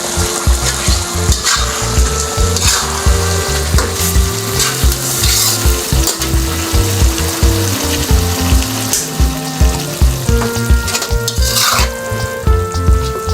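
Black pepper chicken frying and sizzling in a pan while being stirred, with short scrapes now and then, over background music.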